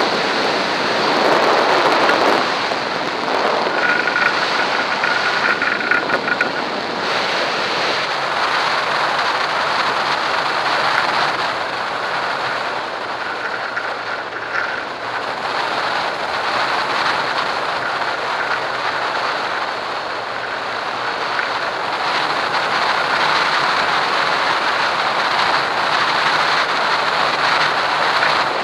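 Steady rush of airflow buffeting the microphone of a wing-mounted camera on a tandem hang glider in flight. A faint high whine sounds for a few seconds about four seconds in.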